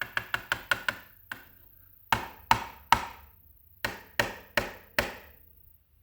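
Lock body being knocked against a hard surface to shake loose the springs still inside it. A quick run of light knocks comes first, then three louder knocks and, after a short pause, four more.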